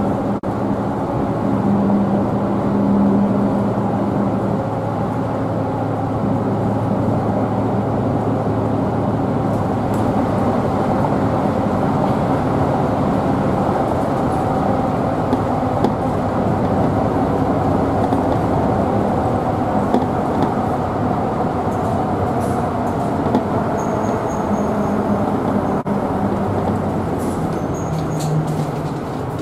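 Route bus engine and road noise heard from inside the passenger cabin while the bus drives, a steady low hum and rumble.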